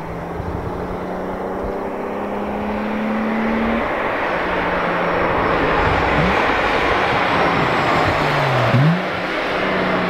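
A VW VR6 running with almost no exhaust, revving and pulling. Its note climbs, steps down about four seconds in, and dips briefly twice later, growing louder toward the end.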